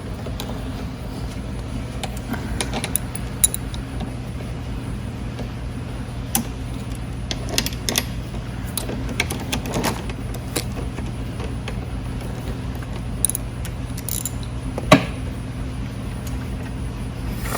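Scattered metallic clicks and clinks of hand tools working the 10 mm handlebar clamp bolts, with one sharper knock near the end, over a steady low hum.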